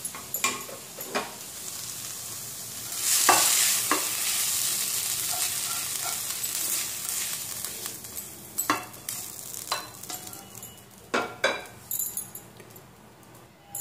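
Spatula scraping hot fried onion-tomato masala out of a kadhai into a glass bowl of soaked poha. About three seconds in, a sizzling hiss lasts about five seconds. Sharp knocks of the spatula against the pan and the glass bowl come throughout.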